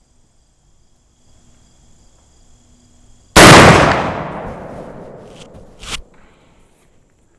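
A single shot from a .50 caliber Lyman Plains percussion pistol loaded with a patched round ball over 40 grains of 3F black powder, fired about a third of the way in. The report trails off over a couple of seconds.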